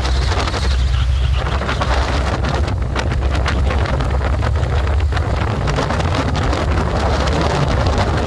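Wind buffeting the microphone on a moving motorcycle, a loud steady low rumble with irregular gusts, over the motorcycle's running and road noise.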